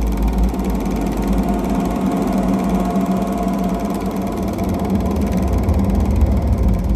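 Film projector running: a steady mechanical whir over a constant low rumble, with a fast, even flutter.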